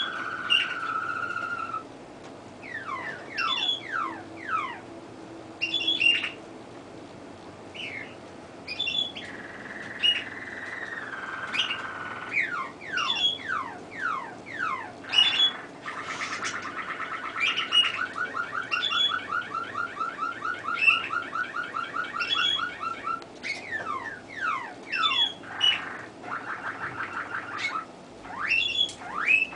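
Domestic canary singing a long, varied song: repeated sharp chirps, quick falling whistled sweeps, held whistled notes and, a little past halfway, a long fast trill of rapidly repeated notes.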